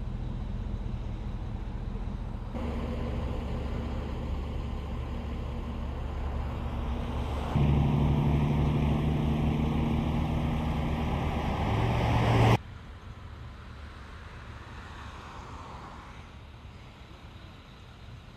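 Utility bucket truck's diesel engine idling with a steady pitched hum, loudest in the middle stretch, rising slightly in pitch just before it cuts off abruptly. Steady engine hum beforehand, quieter outdoor wind noise afterwards.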